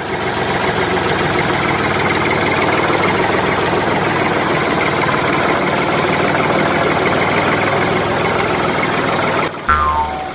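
Tractor engine running steadily, a dubbed engine sound laid over a toy tractor. Near the end, a short electronic jingle of falling tones starts.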